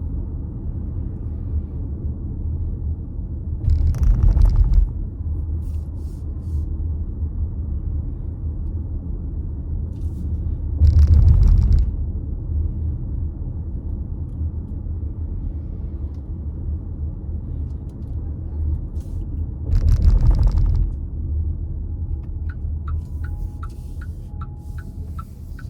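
Steady low road and engine rumble inside a moving car, with three brief louder swells a few seconds apart. Near the end a regular ticking starts, about two to three ticks a second, like a car's turn-signal indicator.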